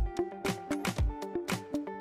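Background music with a steady beat: deep drum thumps and sharp percussive hits about every half second, over sustained melodic notes.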